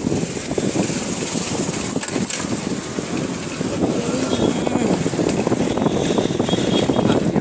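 Street traffic noise heard while riding a bicycle along a town road, with indistinct voices mixed in.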